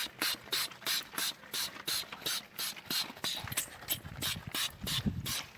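Hand ratchet wrench worked in quick back-and-forth strokes on a bolt, its pawl clicking in a short burst on each stroke, about three to four times a second. A dull low thump comes about five seconds in.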